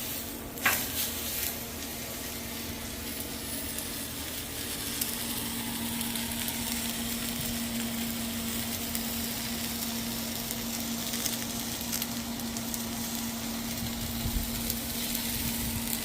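Thick tomahawk steak searing in avocado oil on a griddle at about 600°, a steady sizzle after it has been turned onto a fresh side. A single metallic clink sounds near the start.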